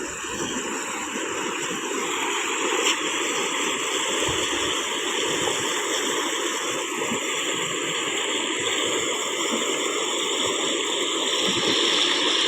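Steady rushing of water, a continuous even noise that grows slightly louder near the end.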